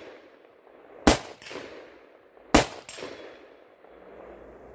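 Two semi-automatic shots from a Zastava ZPAP92 AK pistol in 7.62x39 with a 10-inch barrel, about a second and a half apart. Each sharp crack is followed a moment later by a fainter echo.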